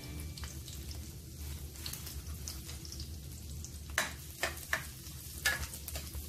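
Chopped garlic and green chillies sizzling in sesame oil in a kadai. From about four seconds in, a spatula stirs them, with several sharp taps and scrapes against the pan.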